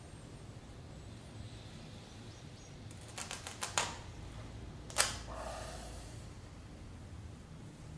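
Cloth hand bandage torn with the teeth: a quick run of ripping crackles about three seconds in, then one sharp snap of the fabric about five seconds in, the loudest sound.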